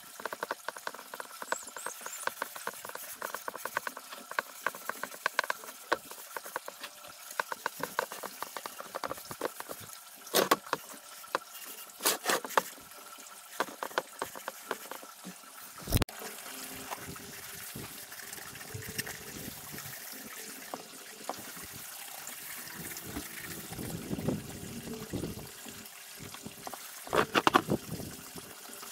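Wax being rubbed and brushed into a scorched wooden crate with a cloth: a rapid scratchy rubbing, broken by several sharp knocks of the crate against the plastic workbench, the loudest about sixteen seconds in.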